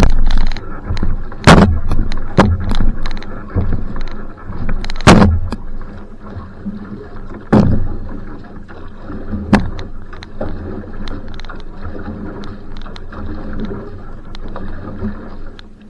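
Va'a outrigger canoe under paddle: water noise and wind rumble on the boat-mounted microphone, with a handful of sharp knocks in the first ten seconds. It is louder and busier in the first few seconds and settles to a steadier wash after that.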